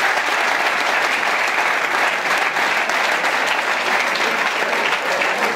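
A room full of people applauding: steady, dense clapping that keeps up at an even level.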